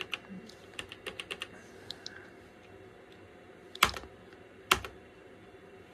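Keystrokes on a Toshiba T3200SX laptop keyboard: a quick run of light key clicks about a second in, then two louder, sharper key strikes near four and five seconds in.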